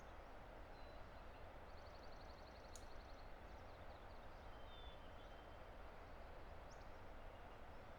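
Faint, steady roar of a distant river, with faint birdsong over it: a rapid high trill about two seconds in and a few short high chirps and a thin whistle later.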